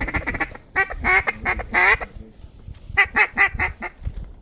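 Duck quacking in quick runs of short, clipped notes, three bursts of chatter separated by brief pauses.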